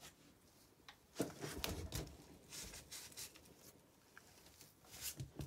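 Scattered light clicks and knocks of hands working the bare Fiat 126 engine as its crankshaft is turned by hand, with a cluster of them a little over a second in and a few more near the end.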